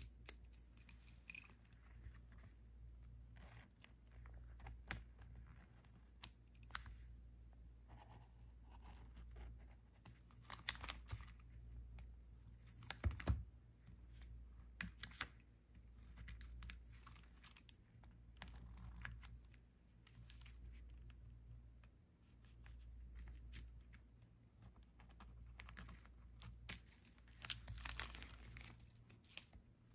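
Faint sounds of paper and desk stationery being handled for journaling: scattered rustles and small clicks at an irregular pace, with a louder knock about thirteen seconds in, over a low steady hum.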